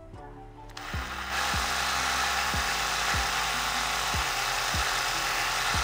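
Cordless drill starting about a second in and then running steadily as its bit grinds into the metal rivet on the underside of a die-cast model car, drilling it out to take the car apart.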